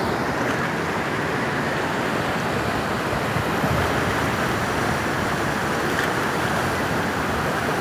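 Fast, turbulent mountain river rushing over rocks: a steady, loud whitewater rush with no break.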